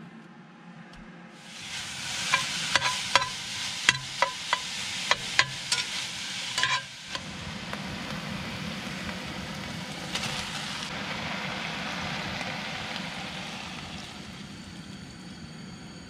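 Pork sausage and onion frying in a cast-iron pot, with a steady sizzle that starts about two seconds in. During the next five seconds a utensil clicks and knocks against the pot about a dozen times as the food is stirred. The sizzling then carries on and slowly fades.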